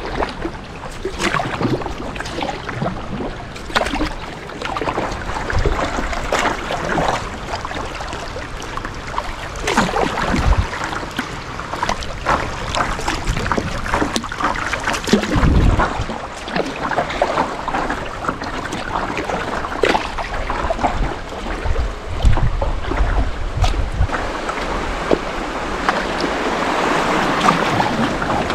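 Kayak paddling on a river: water splashing from paddle strokes every second or two, with wind rumbling on the microphone.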